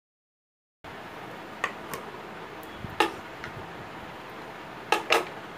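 Dead silence for the first moment, then a steady faint hiss with five sharp clicks and taps, the last two a quick pair near the end.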